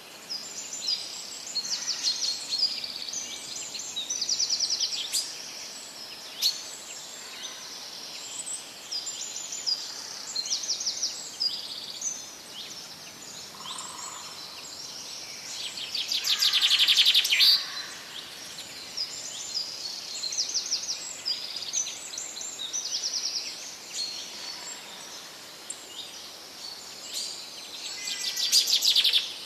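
Several songbirds singing together, with many short overlapping chirps and rapid trills. Two louder trills stand out, one about halfway through and one near the end, over a faint steady hiss.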